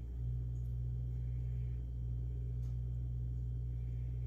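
Steady low hum of background room noise, with a faint click about two and a half seconds in.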